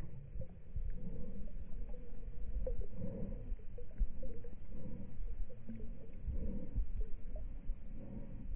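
Lake water sloshing and lapping right at the waterline, muffled, with a low rumble. A black Labrador in the water breathes and pants close by in soft irregular puffs.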